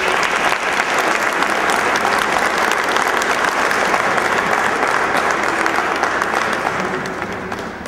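Audience applauding: a steady burst of clapping that starts at once and dies away near the end.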